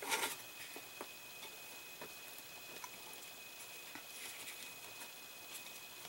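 Faint handling sounds of fingers working a model car's seatbelt strap through a small bracket: a brief rustle right at the start, then scattered light ticks and rustles.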